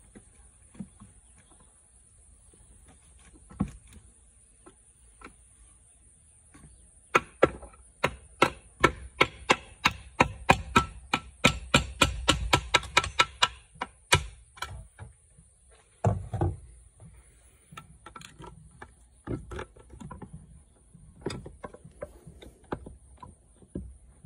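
Hammer tapping on metal parts of a Mitsubishi DCT470 dual-clutch transmission, working a stuck piece loose from the case. A few scattered taps come first, then a quick run of sharp taps, about three or four a second, for several seconds, then more spaced-out taps near the end.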